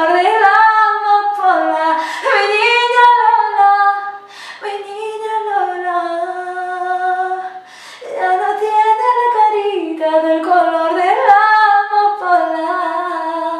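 A woman singing solo and unaccompanied, in long held notes that bend and waver in pitch, with short breaks for breath about four and eight seconds in.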